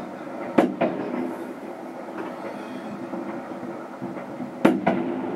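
Fireworks going off: two pairs of sharp bangs, one about half a second in and one near the end, over a steady background rumble.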